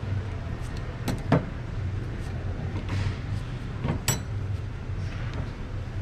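Steel clutch plates and friction discs from a Ford 10R80 transmission's clutch pack clinking as they are handled and set down on a steel workbench: a few short sharp clinks over a steady low hum.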